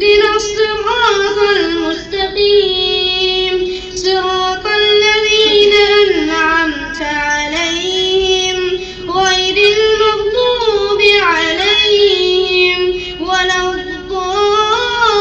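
A male imam reciting the Quran aloud in a slow, melodic chant during prayer: one high voice holding long notes with ornamented turns, phrase by phrase, with short breaths between phrases.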